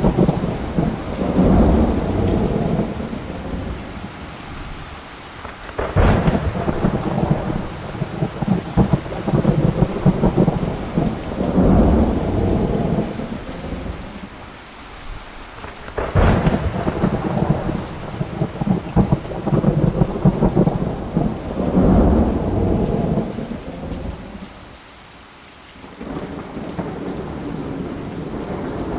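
Thunderstorm: heavy rain with rolling thunder that swells and fades every few seconds. Two sharp cracks, about six and sixteen seconds in, each run into a long rumble. The rumbling dies down for a couple of seconds near the end.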